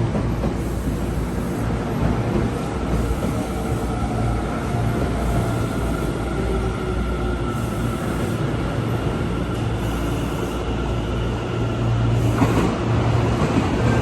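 Electric train running, with a low steady rumble and a faint whine held steady above it; the noise grows louder and rougher about twelve seconds in.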